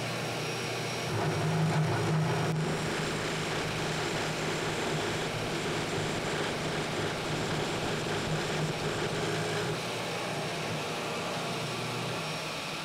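Bench drill press running steadily while its Forstner bit bores a hole into a plywood block. The sound is loudest a second or two in, as the bit bites into the wood, and the low hum eases near the end as the bit is drawn back out.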